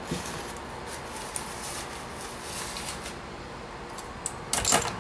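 Hands rummaging in a cardboard box of packed stainless brewing fittings: soft scattered rustling of the packing, then a louder burst of rustling about four and a half seconds in as a part is lifted out. A low steady hum runs underneath.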